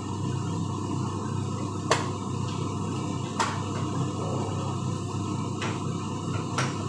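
Kitchen utensils clicking and knocking against containers and the counter, four sharp clicks spread over a few seconds, over a steady low background hum.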